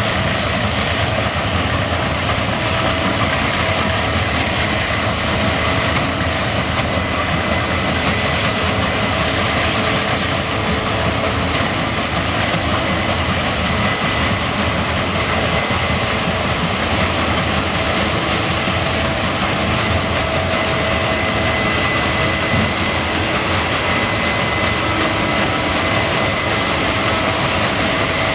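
Case combine harvester running steadily while harvesting barley: a constant dense machine noise from the engine and threshing gear, with two faint steady whines over it.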